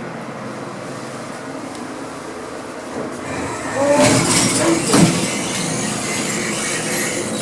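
Lift (elevator) in operation, a modernised 1980s Evans: a steady hum, then about three to four seconds in a louder rushing noise sets in with a brief squeal and a sharp clunk, settling into a steady rush.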